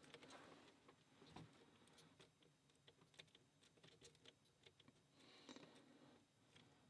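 Faint, irregular small clicks and scrapes of a lock pick working the pins inside a lock cylinder held under counter-rotation tension, with a soft rustle of handling about five seconds in.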